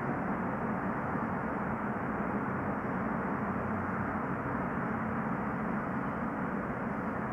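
Steady background noise with a faint low hum and no distinct events.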